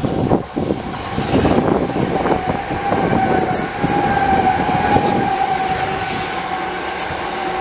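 A train running through the station: rumble and clatter of wheels on the rails with a steady high whine over it, the rumble easing off after about five seconds.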